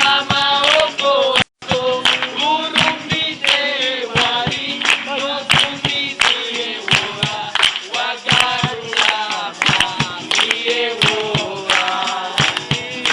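A group of people singing together in chorus, with hand clapping keeping a steady beat of about two claps a second. The sound cuts out for a split second about one and a half seconds in.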